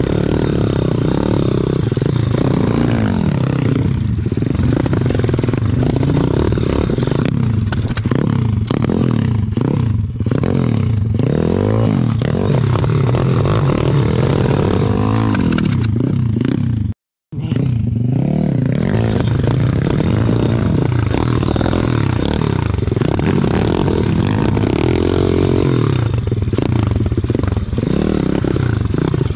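Pit bike's single-cylinder engine running at low speed, its pitch rising and falling over and over as the throttle is worked. The sound breaks off for a moment a little past halfway.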